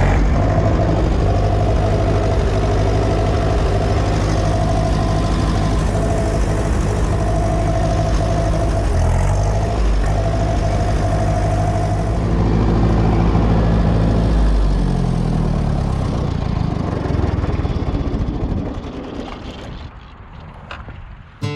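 Tractor engine running just after being started, its speed changing twice, then fading away over the last few seconds.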